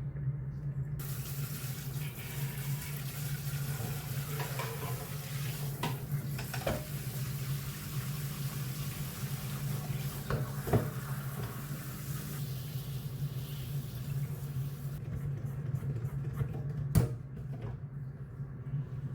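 Tap water running as a vacuum cleaner's plastic dust container is rinsed under it, with a few light knocks. The water starts about a second in and stops near the end. A sharp knock follows about two seconds later.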